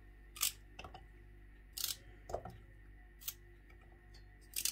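Knife cutting plant stems on a cutting board: about seven separate, sharp knocks at uneven spacing.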